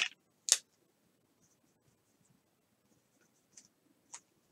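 A few faint, short scratching sounds: one about half a second in, and fainter ticks near the end, in an otherwise quiet room.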